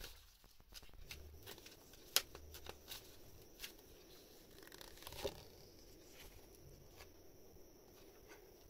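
A deck of oracle cards being shuffled and handled: faint, scattered flicks and taps of the cards, with one sharper click about two seconds in.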